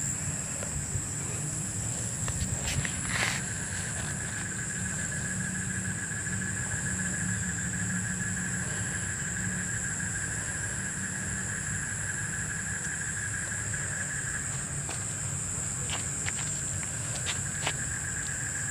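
Night chorus of crickets: a steady high trill at two pitches, one very high and one lower, over a low steady rumble. A few light clicks and rustles come through, most clearly about three seconds in and near the end.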